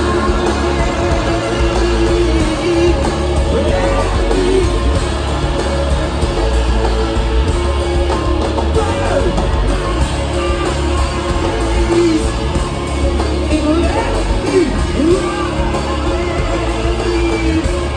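A rock band playing live and loud: electric guitars over bass and drums, with singing at times, heard from within the audience in a concert hall.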